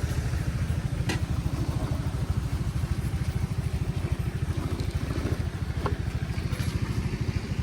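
Yamaha Mio i 125 scooter's single-cylinder four-stroke engine running steadily with a fast, even low pulse. A couple of short clicks come about a second in and near six seconds.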